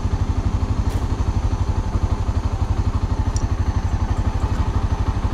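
Motorcycle engine idling with a steady, fast, even low pulse, with two light clicks, about a second in and just after three seconds.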